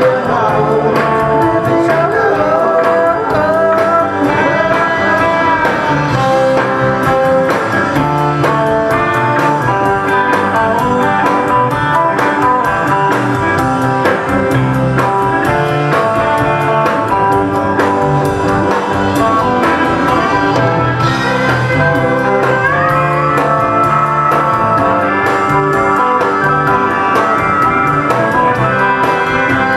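Live country-rock band playing a song, with electric guitars, bass and drums, and sliding lead notes near the start and again in the last third.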